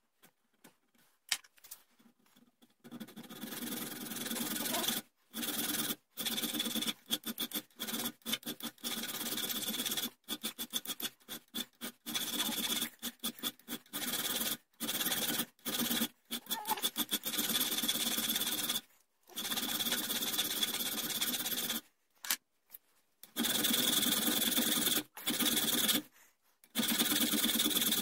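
Flat hand file rasping back and forth across a small steel rear-sight blank clamped in a bench vise, in quick runs of strokes broken by short pauses. It starts about three seconds in, after a single click.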